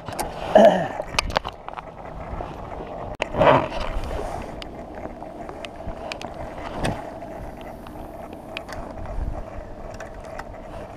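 Rain tapping irregularly on a rain jacket and the small boat as an angler casts a spinning rod and reels in. There are a few louder knocks and a swish in the first four seconds, then a faint steady hum.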